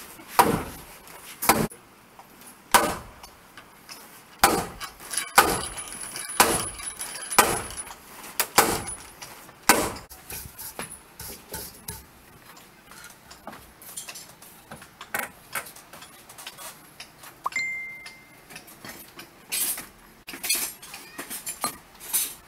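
Heavy blows of a big mallet on a wooden boat hull's planking, about one a second for the first ten seconds. After that come lighter, irregular knocks and taps.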